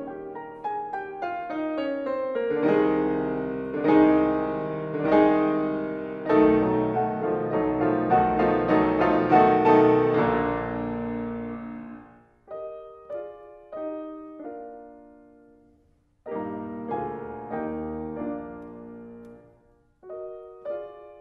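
Two grand pianos played eight hands in a classical arrangement: a rising run into strong chords and a full, loud passage, which thins about halfway through into quieter detached phrases with two short pauses.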